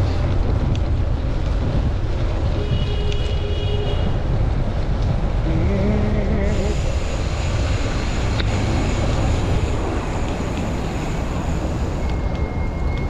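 Strong wind gusts buffeting the microphone during a bicycle ride, a dense low rumble, with traffic noise underneath and a few brief thin tones.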